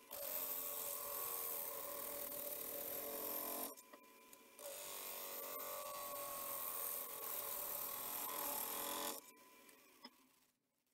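Gouge cutting the outside of a spinning yew bowl blank on a wood lathe, in two cuts of about four seconds each with a short break between them. Near the end the cutting stops and the lathe runs down to a stop.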